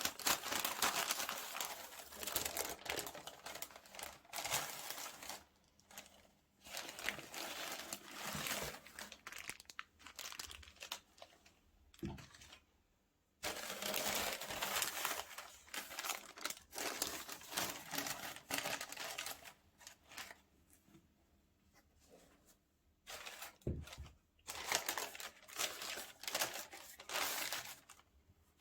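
Paper wrapping being handled and crinkled during a shoe unboxing, in bursts of rustling with short pauses. There are a couple of soft low knocks, about twelve seconds in and again near the end.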